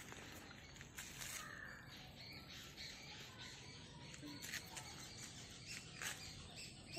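Quiet open-air ambience with birds calling, and a couple of brief soft clicks about a second in and near the end.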